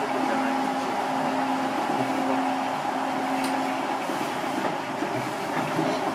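Seibu 8500 series rubber-tyred guideway train heard from inside the car while running along the line: a steady running noise with a steady two-tone hum from the drive.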